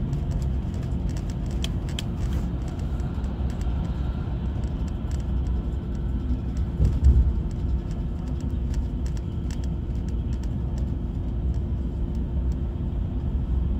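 Steady low rumble of engine and road noise inside a GO Transit coach bus on the move, with a steady hum, light rattling clicks, and one louder bump about seven seconds in.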